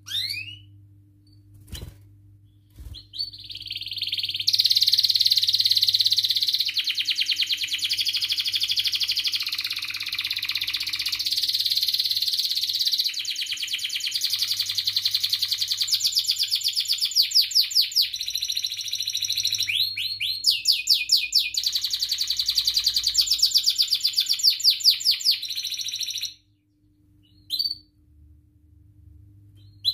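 Domestic canary singing one long unbroken song of fast trills and rapidly repeated high notes, beginning about three seconds in and stopping abruptly near the end, followed by a single short chirp.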